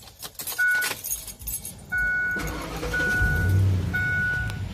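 Keys jangling and clicking in a 2004 Ford E-150's ignition as the key is turned on. A dashboard warning chime then beeps about once a second, over a low rumble.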